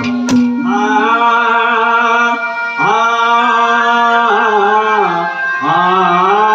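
A male singer holds long, drawn-out notes that slide up into pitch at the start of each phrase, over a keyboard accompaniment, in Haryanvi ragni style. Two sharp knocks sound right at the start.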